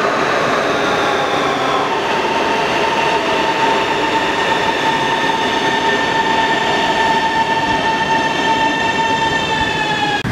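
Electric metro train pulling out of the station, its running rumble carrying a steady high whine that changes pitch about two seconds in and dips slightly near the end.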